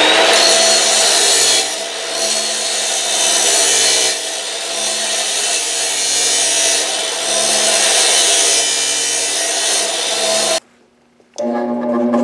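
Abrasive chop saw cutting through steel: the motor's steady whine and the disc's gritty grinding, its level easing and rising a few times as the cut loads the blade. It cuts off suddenly near the end.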